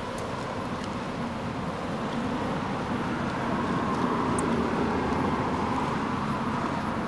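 A motor vehicle passing, its engine and road noise swelling to a peak about four to six seconds in and then easing off.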